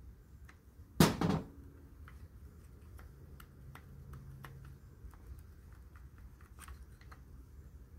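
Light clicks and taps of small metal parts being handled, with one louder clatter about a second in: a washing-machine motor switch's contacts being pulled out one by one for sanding.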